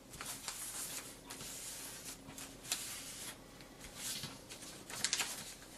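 A square of origami paper rustling and crinkling as it is folded and its creases pressed flat to finish a bird base, with short sharp crackles of creasing; the loudest come a little before the end.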